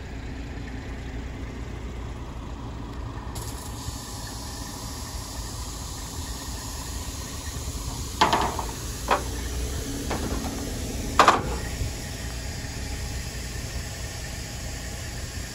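An engine idling with a steady low rumble. About halfway through come four sharp knocks in quick succession, the first and last the loudest.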